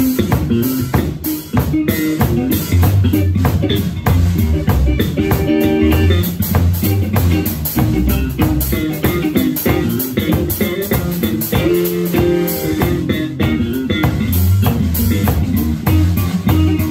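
A blues-rock trio playing live: electric guitar over electric bass and a drum kit keeping a steady beat.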